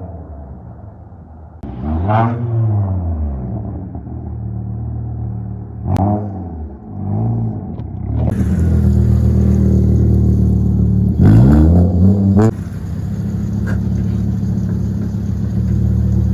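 VW Jetta 2.5-litre inline five-cylinder through an aftermarket exhaust, revved in several blips that rise and fall. From about halfway it runs louder and steadier, then a last rev is cut off sharply. There are a couple of sharp cracks near the top of the revs, the tune's exhaust crackles.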